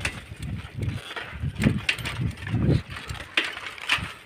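Old roadster bicycle ridden over a rough dirt track, rattling with irregular low thumps and sharp clicks as it jolts over the bumps.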